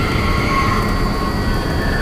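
Spooky Halloween soundscape effect: a steady low rumble under thin, high wailing tones that slide down in pitch.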